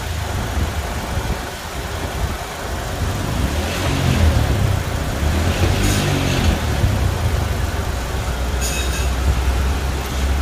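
Honda VTEC car engine idling steadily with the air-conditioning running, with a few brief knocks and rattles about 4, 6 and 9 seconds in as the front bumper and grille are fitted back on.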